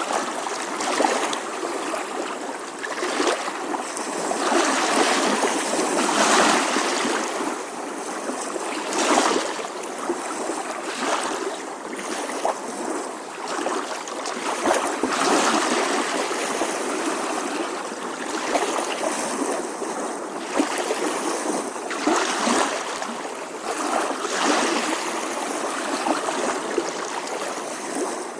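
Small ocean waves lapping gently on a seashore: a continuous wash of water that swells and ebbs every few seconds.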